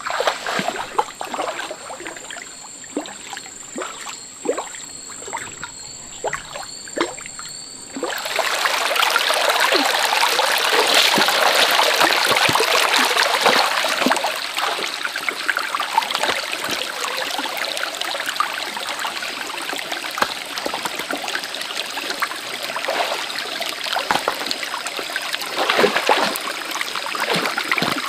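A dog wading through shallow water, splashing step by step, over a steady high-pitched background whine. About eight seconds in, this gives way to a shallow stream running over rocks, a steady rush with a few knocks near the end as stones are shifted in the water.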